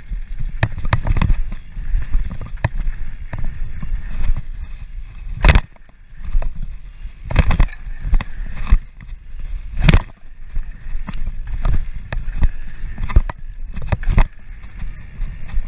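Mountain bike riding fast down a dirt jump trail: tyres rumbling on the dirt and wind buffeting the microphone, broken by sharp knocks and rattles from the bike over bumps and landings. The three loudest come about five and a half, seven and a half and ten seconds in.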